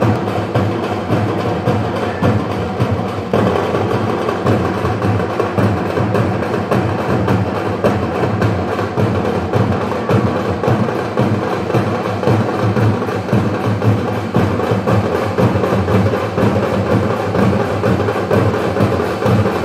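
Live drums played in a fast, steady, driving rhythm for a baraat procession, loud and unbroken.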